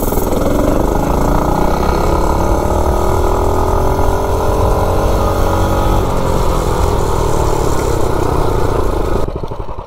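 Mini bike's single-cylinder Predator-based engine, governor removed, running at full throttle as the bike accelerates hard from a standstill, its pitch climbing over the first several seconds, with wind rushing over the microphone. Near the end the engine note drops away as the throttle is let off.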